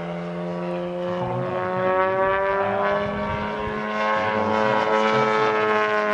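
Radio-controlled model biplane's engine and propeller running in flight. The pitch climbs gradually, then drops near the end, over a steady lower hum.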